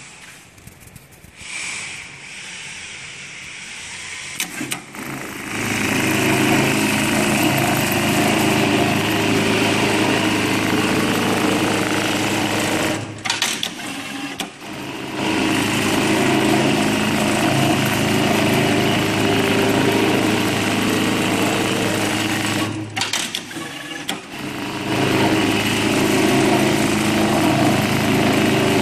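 Industrial programmable pattern sewing machine (FOXSEW) stitching at speed, with its needle bar running steadily. It starts about five seconds in after a few clicks, and stops briefly twice before running on.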